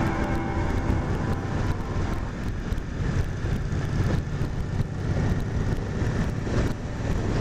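Motorcycle riding along the road: a steady low engine and road drone with no distinct events.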